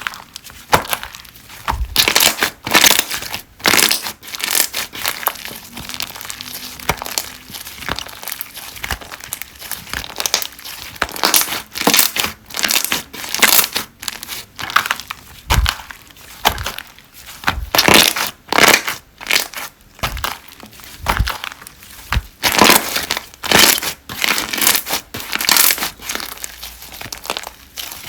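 Hands squeezing and working slime, giving an irregular run of crackling, popping bursts of varying loudness.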